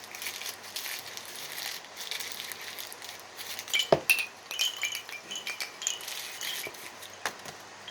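A long handmade goddess and crescent moon wind chime tinkling and clinking as it is held up and swings, with short ringing notes scattered throughout and one louder knock about four seconds in.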